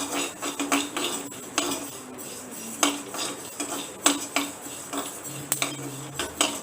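A spatula stirring and scraping rice grains around a hot kadai, with irregular clinks and scrapes, as the rice is roasted until it puffs.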